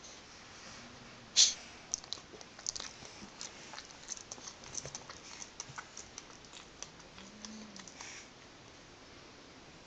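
Sleeping pug making a run of irregular small clicks and smacks as it twitches, the loudest about a second and a half in, with a faint snore about seven seconds in.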